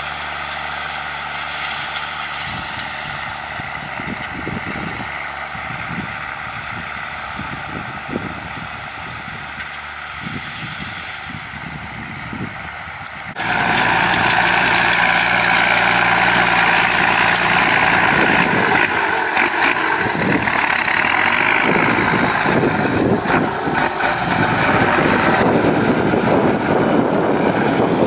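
New Holland 7840 tractor's diesel engine running steadily under load as it pulls an 18-disc plough through dry, hard soil. About halfway through, the sound suddenly becomes much louder and nearer.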